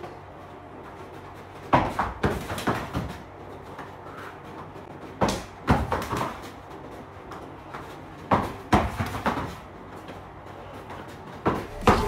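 Flurries of quick slaps and thuds as hands and forearms strike and block each other in a wing chun sparring drill, with stepping on the floor mats. Four short flurries come about every three seconds, each lasting about a second, with quieter gaps between.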